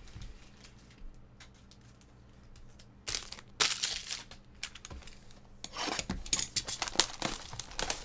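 Cellophane shrink-wrap being torn and crinkled off a sealed box of 2019 Panini Chronicles baseball cards. There is a first loud rip about three seconds in, then a longer run of crackling tearing through the last two seconds or so.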